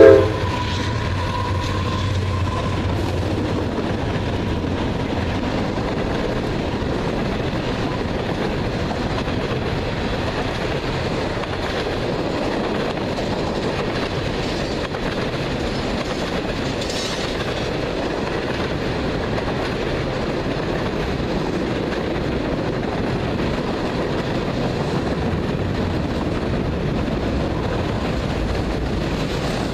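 CSX freight train rolling past: a steady rush of steel wheels on rail with no letup, with a low locomotive hum in the first couple of seconds.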